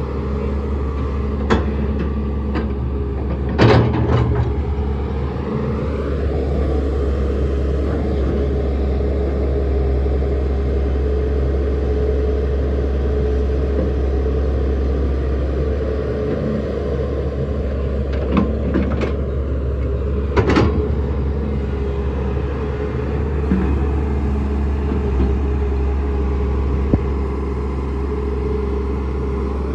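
Sany 215 hydraulic excavator's diesel engine running steadily under load, with a few sharp metallic clanks. The loudest clank comes about four seconds in, and several more fall about two-thirds of the way through.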